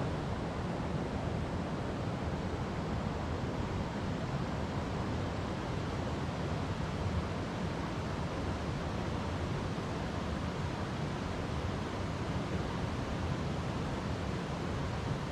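River water flowing over rocks: a steady, even rush of water noise, heaviest in the low pitches.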